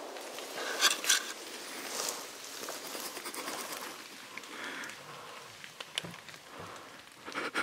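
Fading echo of a rifle shot rolling away through the forest. About a second in come two sharp clicks, then light rustling, with another cluster of clicks near the end.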